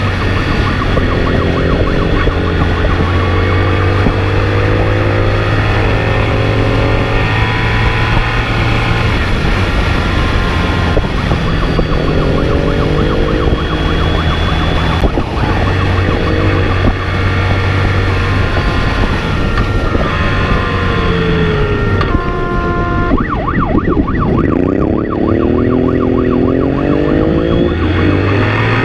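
Emergency-vehicle siren sounding in alternating and warbling tones over a car engine that revs up again and again as the vehicle accelerates hard through the gears.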